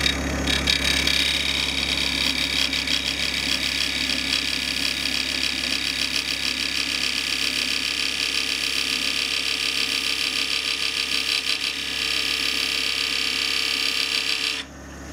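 Gouge-type turning tool cutting into a spinning wooden box blank on a wood lathe, hollowing the inside: a steady hissing, tearing cut with a fast even flutter from the rotation, throwing off shavings. The cut stops abruptly just before the end, leaving the lathe motor's low hum.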